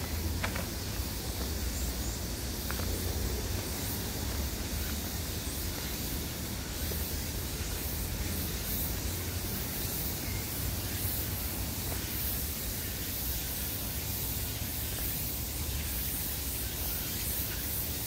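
Steady hiss over a low rumble, the wind and handling noise of a handheld microphone carried along a forest trail.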